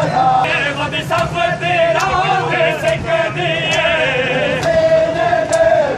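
Men's voices chanting a mourning lament together in a crowd, a lead voice holding long wavering notes.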